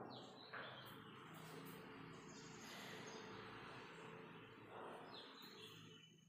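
Near silence: faint room tone with a few short, high chirps, like distant birds, near the start and again about five seconds in.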